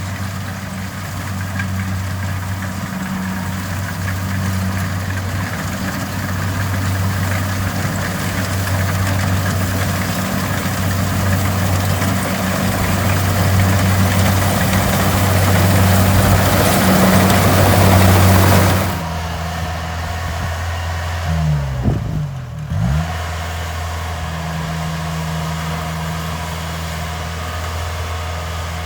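Kubota DC70 Plus combine harvester's diesel engine running steadily under a loud rushing noise that builds; about nineteen seconds in the rushing stops abruptly, leaving the engine hum alone, which sweeps down and back up briefly a few seconds later.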